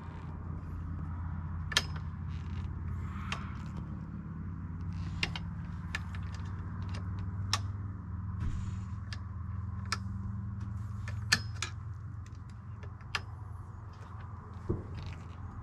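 Irregular sharp metallic clinks and creaks, about ten in all, of tools and exhaust parts being handled while a motorcycle exhaust is being fitted, over a steady low hum.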